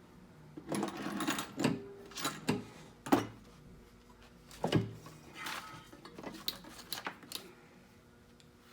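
Irregular knocks and clatter of hard parts being handled on a key-cutting machine and workbench, about a dozen in the first seven seconds and the loudest just after three seconds, over a faint steady hum.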